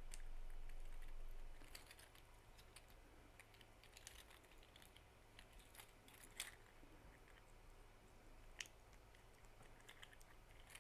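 Faint, scattered clicks and taps of a 3D-printed plastic articulated sloth's print-in-place joints being twisted and handled, with two sharper clicks in the second half.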